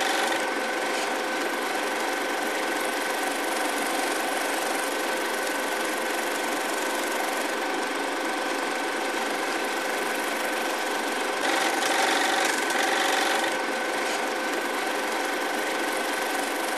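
A small film projector running steadily, a mechanical whirr with a constant hum through it, swelling slightly for a couple of seconds in the latter half.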